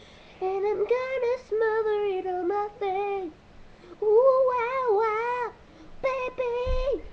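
A boy singing without words in a high, wavering voice: about five drawn-out notes that bend up and down in pitch, with short breaks between them.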